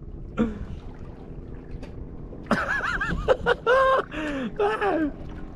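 A boy laughing and giggling in several bursts, some held high, starting about halfway through, over a low steady background.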